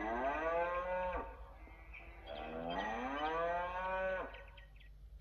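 A cow mooing twice: two long calls, each rising and then falling in pitch, the second longer than the first.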